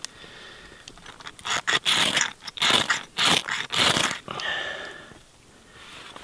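A steel striker scraped hard down a ferrocerium rod in a quick run of strokes, throwing sparks onto charred horse's hoof fungus to catch an ember. The strokes start about a second and a half in and stop after about three seconds.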